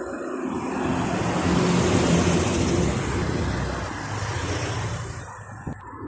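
A motor vehicle passing close on a town street: engine and tyre noise swell to a peak about two seconds in, then fade away, with a short knock near the end.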